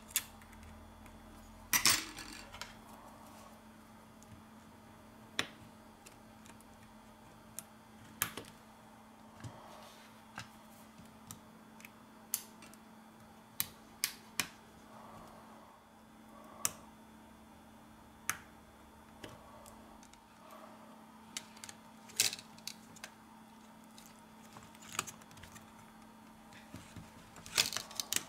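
Irregular small clicks and taps of metal tweezers and a plastic pry tool against a smartphone's internal parts and frame, with a louder cluster of clicks near the end. A faint steady hum runs underneath.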